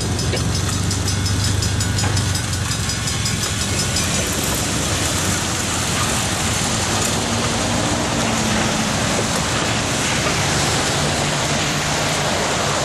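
Rail speeders (small track motorcars) running past on the rails. For the first few seconds one engine hums close by with a rapid, even ticking. After that comes a steady wash of wheel and engine noise as more cars follow along the track.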